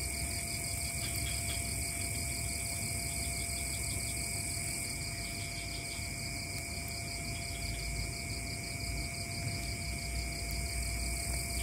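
A night insect chorus: several crickets and other insects trill steadily at different pitches, one of them in a rapid pulsing trill, over a low rumble that grows near the end.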